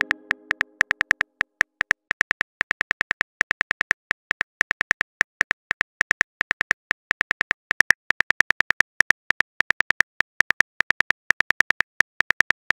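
Simulated phone-keyboard typing sound from a texting-story app: quick, sharp key clicks about five or six times a second with uneven gaps, running on as a message is typed out.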